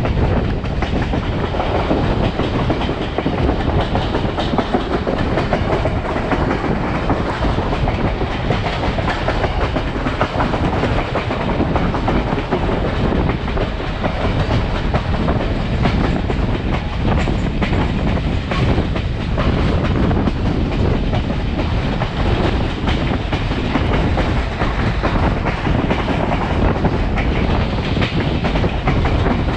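A riveted steel passenger coach running along the track at speed: steady wheel-on-rail noise with no pause or change.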